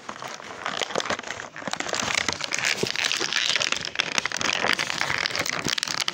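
Clear plastic toy packaging crinkling and crackling as it is handled and worked open, a busy stream of small clicks and pops that gets louder about two seconds in.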